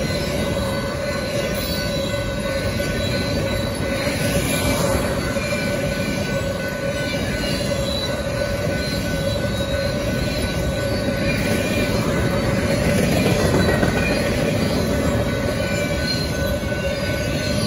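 Freight train of empty flatcars rolling past steadily: a continuous rumble and rattle of wheels on rail with a steady squeal of wheels over it, growing slightly louder about three-quarters of the way through.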